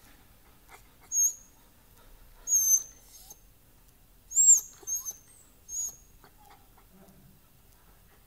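A dog whining in a series of short, high-pitched squeaks, about half a dozen between one and six seconds in.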